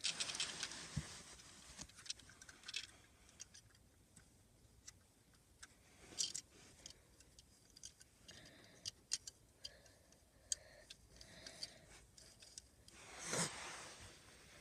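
Faint small plastic clicks and ticks from a hand handling a Lego garbage truck, with rustling near the start and again about 13 seconds in.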